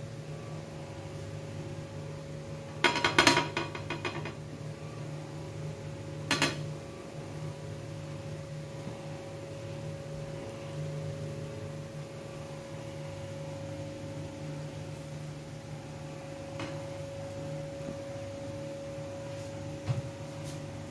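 Metal utensil clinking against an iron tawa: a short rattle of clatters about three seconds in, a single clink near six seconds, and a couple of faint taps later, over a steady hum.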